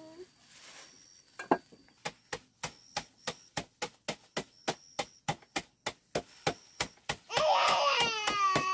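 Repeated knocks of a large kitchen knife pounding a plastic bag of rice on a wooden chopping board, about three strikes a second, starting about a second and a half in. Near the end a baby's loud voice joins over the knocks.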